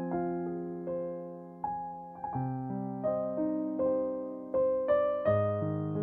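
Slow, gentle background piano music: single notes struck every half second or so, each ringing and fading over held lower chords.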